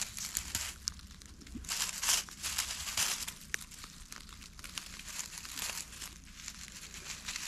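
Dry leaves and grass rustling and crackling as a hand plucks young wild greens from the ground, in a string of irregular rustles with sharp little crackles.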